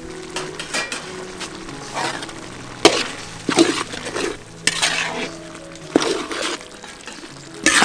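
Metal ladle stirring and scraping around a steel wok of cooking curry, with irregular scrapes and clinks about once a second over a low sizzle.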